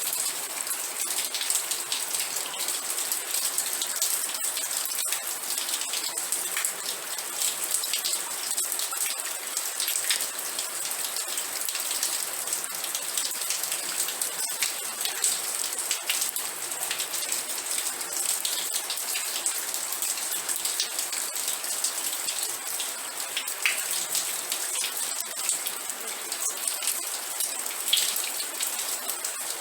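Steady rain falling, dense patter of drops striking a surface with a bright hiss and scattered louder individual drop hits.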